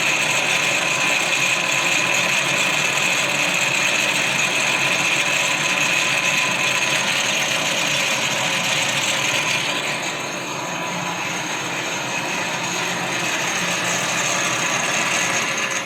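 Lathe running under power during plain turning on automatic feed: a steady mechanical gear whir with a high steady whine, the whine dropping away about ten seconds in.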